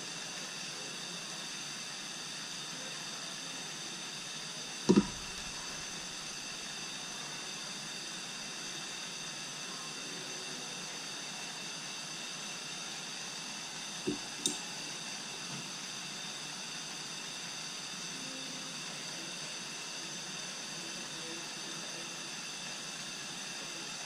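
A steady low hiss of background noise, broken by one sharp knock about five seconds in and two light clicks around fourteen seconds in.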